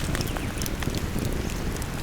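Wood campfire crackling with many small scattered pops, over the steady low rush of a flowing river.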